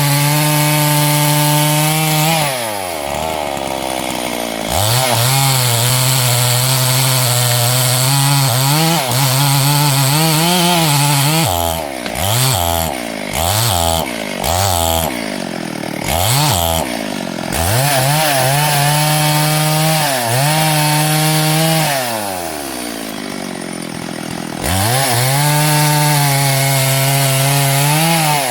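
Two-stroke chainsaw running at full throttle through wood, the engine pitch wavering under load. It drops to idle and revs back up twice, and around the middle it is blipped up and down several times in quick succession.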